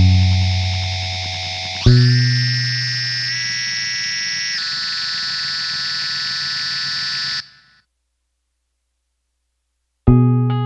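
Music: heavily distorted, effects-laden chords, struck twice and left to ring, that cut off suddenly into silence about three quarters of the way through. Near the end, a keyboard starts a run of separate plucked-sounding notes.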